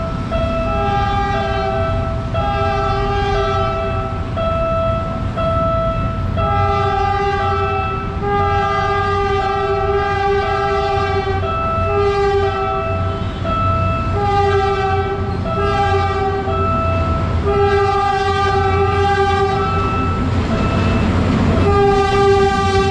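Diesel locomotive sounding its multi-tone horn in a long series of repeated blasts, some short and some long, as a warning while approaching a level crossing, over the low rumble of its engine. Near the end the rumble and wheel noise swell as the locomotive passes close by.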